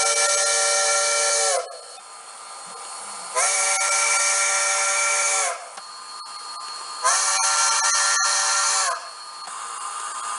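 A model-railway DCC sound decoder playing a multi-chime steam locomotive whistle through a small speaker: long whistle blasts, one ending about a second and a half in, another about three and a half seconds in, a third about seven seconds in, each bending up at the start and sagging at the end, with a steam hiss between them. A fourth blast starts at the very end.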